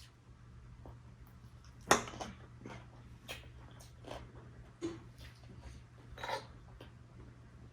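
Eating at a table: scattered clicks, knocks and clinks of food and dishes being handled, the sharpest knock about two seconds in, over a steady low hum.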